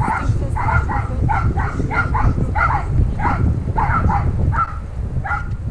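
A dog barking over and over in quick short barks, about three a second, with a few brief pauses, over a steady low rumble.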